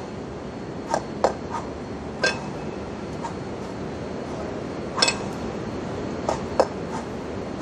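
Two 20 kg kettlebells knocking and clinking against each other as they are cleaned to the chest and jerked overhead: a handful of sharp metallic knocks about a second in and again around five seconds in, over a steady background hiss.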